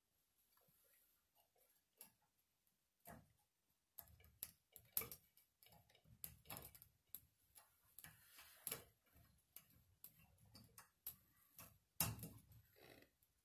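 Faint, irregular clicks and taps of a brass Moen 1225 shower cartridge being handled in its valve body, metal on metal, with a sharper knock about five seconds in and the loudest one near the end.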